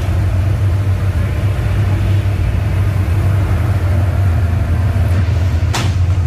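Steady low rumble of engines and busy street traffic, with a single sharp knock near the end.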